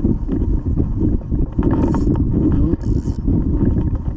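Wind buffeting the microphone, a heavy low rumble throughout, with faint scattered clicks.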